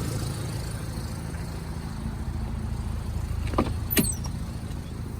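2004 Audi A4 B6's engine idling steadily, with two short sharp clicks about three and a half and four seconds in.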